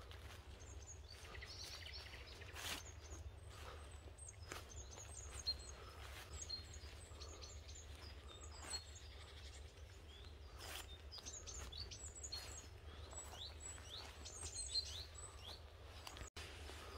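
Small songbirds calling in bare winter woodland: many short, high chirps and quick sliding calls, thickest in the second half. Under them is a faint, steady low rumble, with a few short soft knocks from walking.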